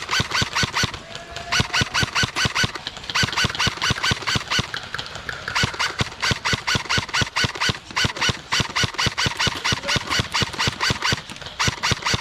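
Airsoft gun firing a long, rapid string of sharp shots, about six a second, with a couple of brief pauses.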